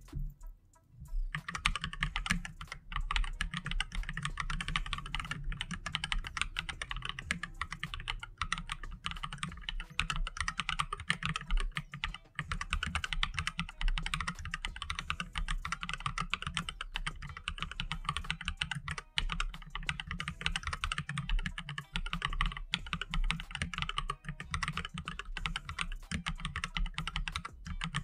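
AKKO 3108 RF mechanical keyboard being typed on fast and continuously, a dense run of key clacks that starts about a second in and breaks off briefly a few times.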